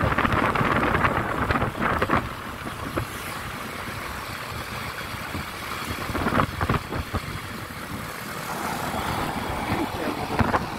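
A moving vehicle with wind buffeting the microphone, loudest for about the first two seconds, then a lower steady rush with a few brief louder gusts.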